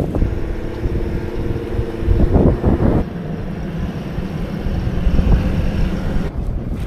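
Four-wheel-drive vehicle driving off-road: a continuous low engine and tyre rumble, with a steady engine note held for the first three seconds that grows louder just before it drops away.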